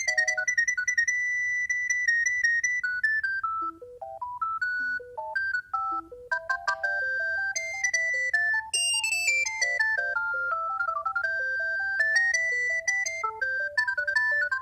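Alcatel One Touch 320 mobile phone playing a ringtone: a bright electronic beeping melody of short stepped notes, with a lower accompanying line of notes under the tune in the second half.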